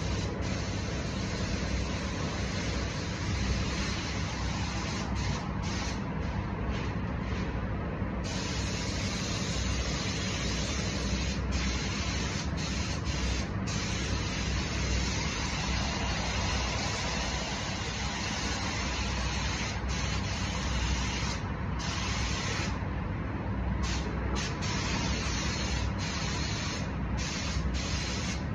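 Air-fed paint spray gun hissing as it sprays a car's side panels, with short breaks in the hiss several times, over a steady low rumble.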